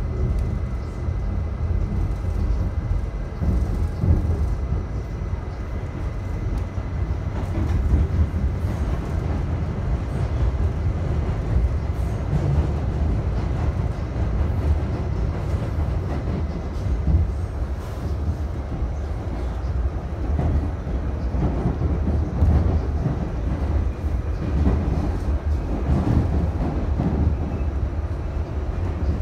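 Steady low rumble of an R68A subway car running at speed, heard from inside the car: wheels on rail and the car body shaking. A faint steady high whine sits over it and fades out about halfway through.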